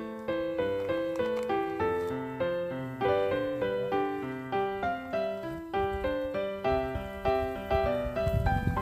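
Background piano music: a steady run of notes. A low rumbling noise comes in under it near the end.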